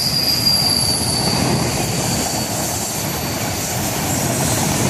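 Freight train of autorack cars rolling past: a steady rumble of wheels on rails, with a thin high squeal over it that dims about halfway through.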